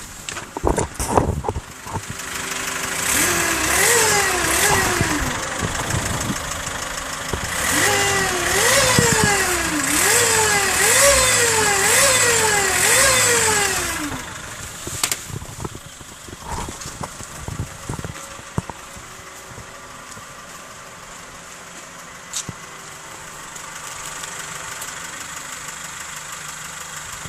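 Mazda6 car engine revved in a series of quick throttle blips, about one a second, each one jumping up in pitch and sinking back, then settling to a steady idle about halfway through; the owner calls the engine sound weird.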